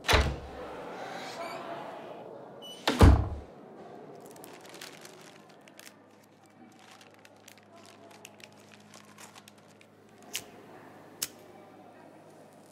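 Two heavy thuds about three seconds apart, the second the louder, then the crackling of a crinkly wrapper being unfolded in the hands, and two sharp clicks near the end.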